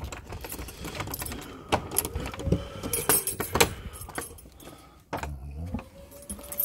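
A bunch of keys jangling, with several sharp metallic clicks as a key is taken out and used on a door.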